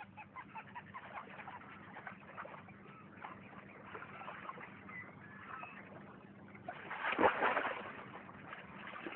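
Faint wildlife ambience of small bird chirps and short whistles, with a louder rush of noise about seven seconds in.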